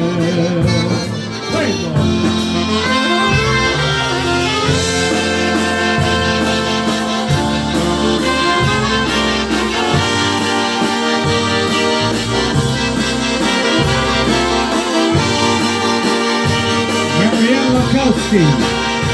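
Live polka band playing an instrumental passage between verses: accordion leading over brass, bass and drums with a steady beat.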